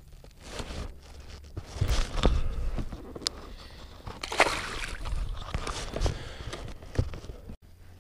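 Water splashing and sloshing against the side of a plastic kayak as a small largemouth bass is lowered from the hand into the pond and released, in irregular bursts with a few sharp knocks; the biggest splash comes about halfway through.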